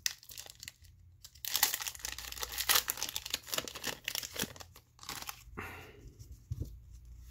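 Crinkling foil wrapper of a Pokémon card booster pack being torn open, densest about one and a half to three and a half seconds in, followed by lighter rustling and small clicks of handling.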